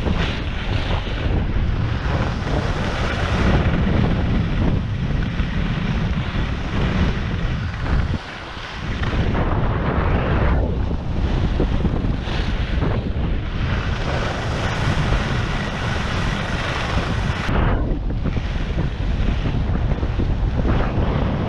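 Wind buffeting the microphone while sliding fast down a groomed ski slope, with the hiss and scrape of edges on packed snow swelling and fading through the turns. The noise briefly drops about eight seconds in.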